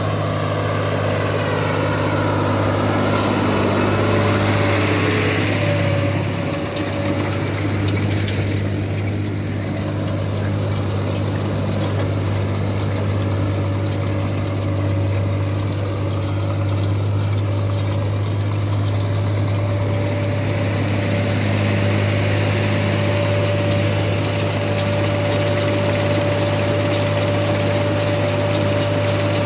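Harvest machinery's diesel engine running steadily under load, a constant deep drone with a thin whine that comes in briefly around five seconds in and again through the later part.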